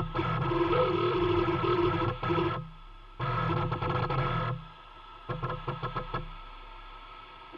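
Stepper motors of a home CNC lathe conversion driving the slide in short moves, a steady whining hum that stops briefly, starts again and then cuts off, followed by a quick run of light ticks.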